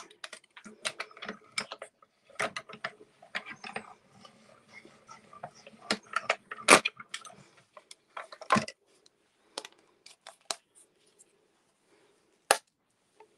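Manual die-cutting machine being cranked to roll a die-and-plate sandwich through, with many plastic clicks and clacks and a faint grinding under them. The loudest clack comes about seven seconds in, then sparser clicks follow as the acrylic plates are handled.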